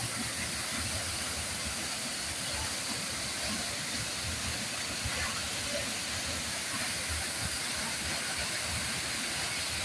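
Waterfall roaring: a steady, unbroken rush of falling water.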